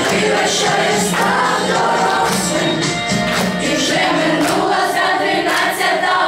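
Group of schoolchildren singing a song together in chorus.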